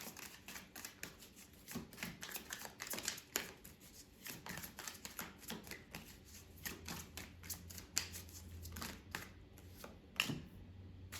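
A tarot deck being shuffled and handled by hand: a dense, uneven run of quick soft card flicks and clicks.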